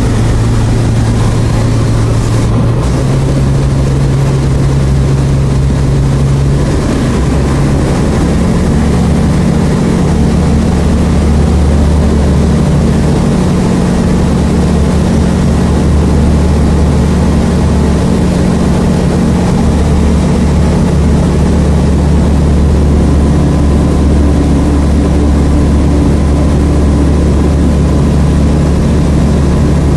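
Light airplane's piston engine and propeller running loud, heard from inside the cockpit. The engine note steps up in pitch about three seconds in and again about eight seconds in, then holds steady.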